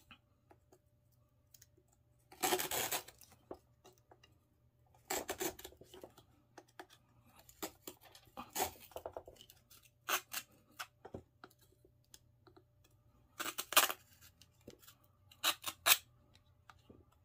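A small hand-saw blade with its handle broken off, rasping through a thin fishing rod tip in short bursts of strokes with pauses between.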